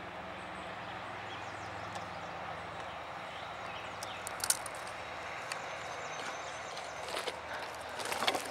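Steady outdoor rushing noise, with a few short clicks and crunches, one about halfway through and several more near the end.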